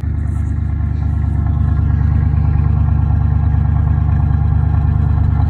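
Old Chevrolet pickup's engine running steadily at idle, a loud, even low rumble with a fine regular pulse.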